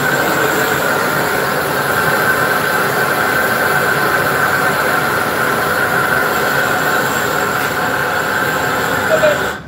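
Gas burner flame heating a glass piece on a punty: a loud, steady rushing noise with a faint whistle in it, which cuts off suddenly near the end.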